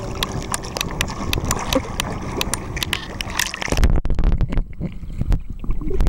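Seawater splashing and lapping against a handheld camera held at the surface, with many small crackling splashes on the microphone. A little over halfway through the camera goes under, and the sound turns to a muffled, low underwater rumble with a few thumps.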